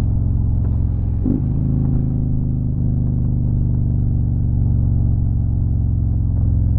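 Motorcycle engine running steadily at road speed, heard from on the bike, with a brief change in engine note about a second in.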